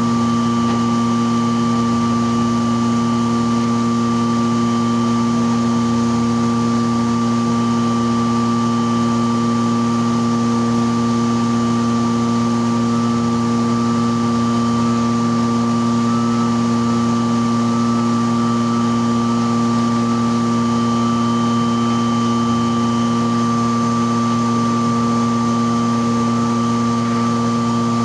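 Thermoforming machine running: a steady mechanical hum of several even tones from its motors and pumps, unchanging throughout.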